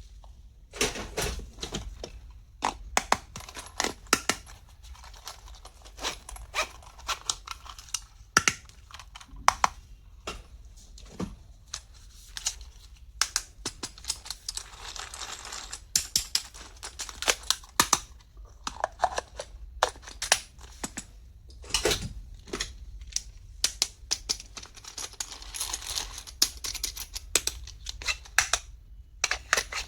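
Small plastic stationery items being handled and unpacked: irregular clicks and taps, with two longer stretches of rustling and crinkling packaging.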